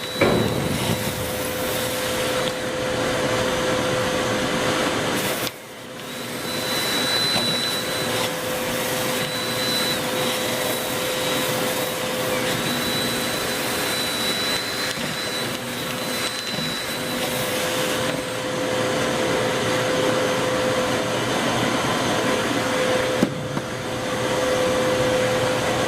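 Motor-driven rotary brush spinning inside a lint-clogged dryer vent duct: a steady motor run with a high whine. It starts abruptly and dips briefly about five seconds in.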